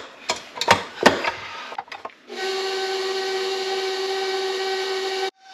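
A few clicks and knocks as the wire whisk is fitted to a KitchenAid Professional HD stand mixer. About two seconds in, the mixer's motor starts and runs steadily with a whine, whisking sugar and molasses. It drops out for an instant near the end.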